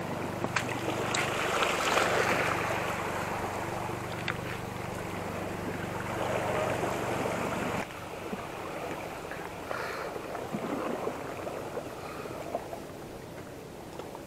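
Shallow seawater splashing and lapping over seaweed-covered rocks at the shoreline, loudest in the first seconds, dropping off abruptly about eight seconds in to a quieter wash with a few small handling ticks.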